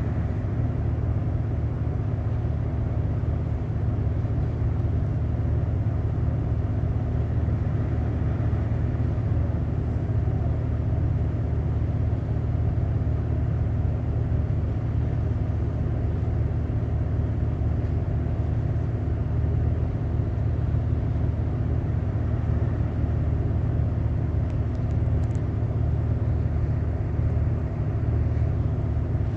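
A boat's engine running at a steady pace, a low even drone with a steady hum underneath and no change in speed.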